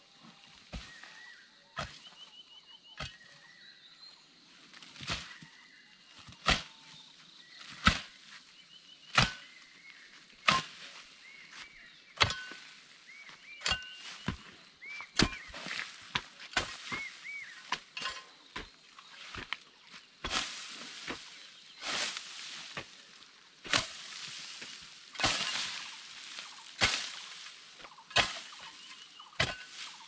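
Hand hoe chopping into earth and roots at a grassy terrace wall, one sharp strike every second or so. About two-thirds of the way through, the strokes come faster and scrape more through soil and grass.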